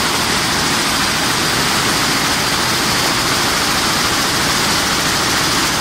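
Toyota JAT810 air-jet weaving loom running at speed: a loud, steady rush of air-jet noise with a fast, even clatter underneath.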